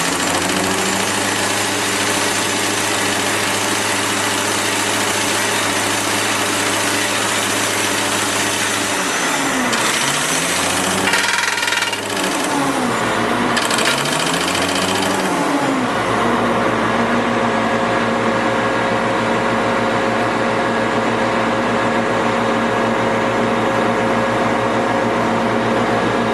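Tamrock Pantera 1500 drill rig's diesel engine and hydraulics running. Through the middle the engine note dips and recovers about three times, as under changing load, with a higher hiss coming and going, then it settles to a steady run.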